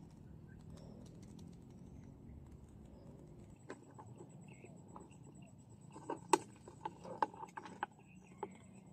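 Faint background hiss, then from about six seconds in a run of irregular light clicks and taps on a clear plastic food container, the sharpest one early in the run.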